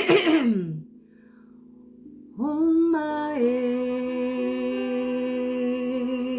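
A woman's voice toning: one long sung note that slides up, drops to a lower pitch and is held steady, wavering slightly near the end. It opens with a short harsh vocal sound that falls in pitch, and a faint steady low drone sits underneath.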